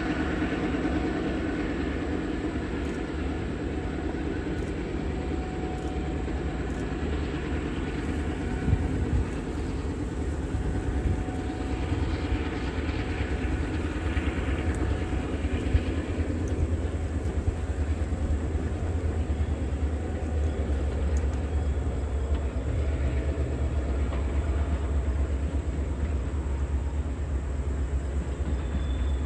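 Diesel-hauled passenger excursion train running by with a steady low rumble of engines and wheels on rail. The rumble grows heavier about ten seconds in, with a couple of sharp knocks.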